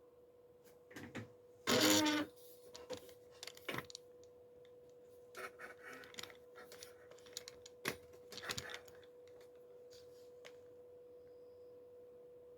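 Handling noise from a camcorder and its cable: a string of clicks, knocks and short rattles, the loudest a brief burst about two seconds in. A faint steady hum runs underneath.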